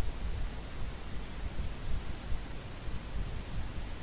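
Steady background noise with a low, uneven rumble and a hiss over it, and no speech.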